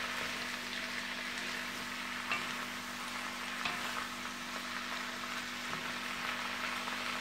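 Sliced sausage, bell peppers, onions and garlic sizzling steadily in a wok as they are stirred with a wooden spoon, with a few faint taps of the spoon against the pan.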